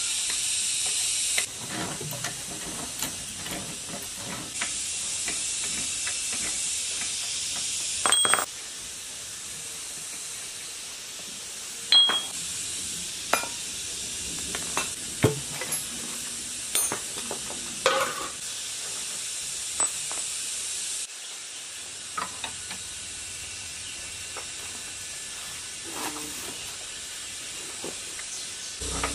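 Scattered metal clinks and taps of a socket wrench and extension against the parts of a scrapped diesel engine being taken apart, over a steady high hiss.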